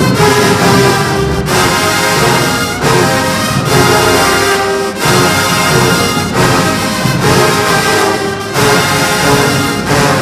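Marching band brass section playing loud sustained chords in phrases with short breaks between them.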